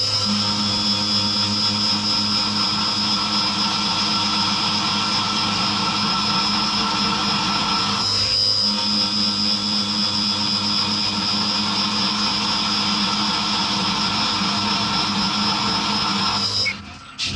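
SkyfireCNC SVM1-VMC milling machine running an end mill through an aluminium billet under coolant. A steady high whine sits over a hum and cutting noise, with a brief change about eight seconds in, and the sound drops away sharply just before the end.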